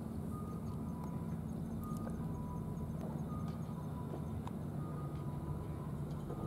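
A steady low engine-like rumble under a repeating two-note electronic beep, the higher note then the lower, the pair coming round about every second and a half.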